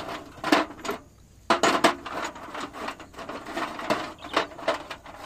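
Metal clicking and scraping of a nut and bolt being worked by hand at a tractor's rear wheel rim. There are a few sharp knocks about half a second and a second in, then a quick, uneven run of clicks and scrapes.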